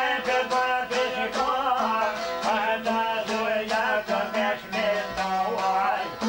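Albanian folk music played on long-necked plucked lutes, a çifteli and a sharki. A fast, ornamented melody of quick plucks runs over a steady low drone.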